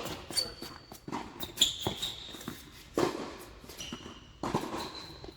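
Tennis ball being struck and bouncing, a sharp knock about once a second or so, with tennis shoes giving short high squeaks on the court.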